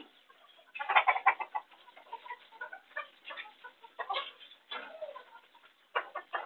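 Caged chickens clucking softly while they peck grain from plastic pipe feed troughs, with quick runs of sharp pecking taps, the densest about a second in.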